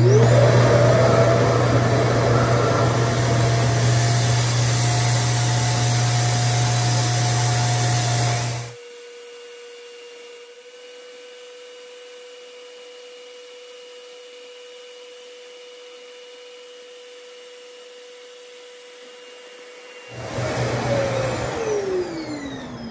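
RevAir reverse hair dryer running, a loud vacuum-like whir with a low hum as its suction fan draws the hair through the tube, cutting off sharply about nine seconds in. A fainter steady whine is left after that. Near the end the motor comes on again briefly and winds down with a falling pitch.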